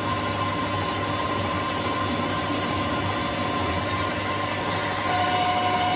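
Manual metal lathe running with its chuck spinning: a steady hum of motor and headstock gears with a thin steady whine. About five seconds in, the sound gets a little louder and a new steady whine comes in.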